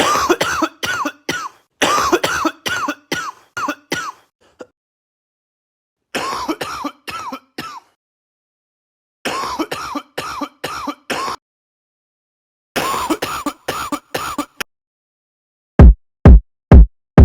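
Coughs chopped into rhythmic phrases, four groups of quick repeated coughs with sudden silent gaps between them. Near the end come four heavy bass-drum hits, each dropping in pitch, like the start of a funk beat.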